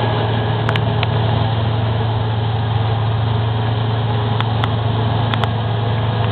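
Claas Tucano 320 combine harvester running steadily while harvesting, a constant low engine hum under a mechanical rush, with a few faint sharp clicks.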